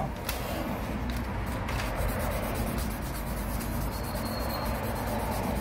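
Sandpaper rubbed by hand over the friction lining of a Honda Benly 110's centrifugal clutch shoes, a steady scratchy scrubbing, taking off the blackened surface to ease low-speed clutch judder.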